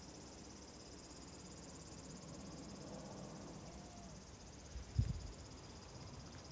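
Insects chirring steadily in a high, finely pulsing drone, with one dull low thump about five seconds in.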